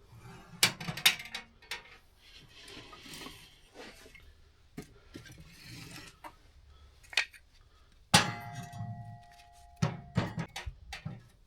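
Clinks and knocks of metal and glass things being handled, with rustling in between. About eight seconds in there is one louder clank that rings on briefly.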